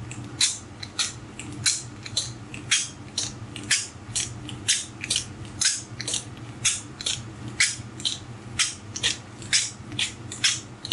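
Two-part epoxy in a pre-measured pouch being dragged back and forth over a table edge to mix it, giving a run of sharp crackling clicks, about two or three a second. The crackling is air being worked into the mixture.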